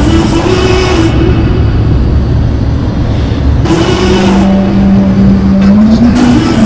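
Steady road and engine noise inside the cabin of a moving SUV at highway speed.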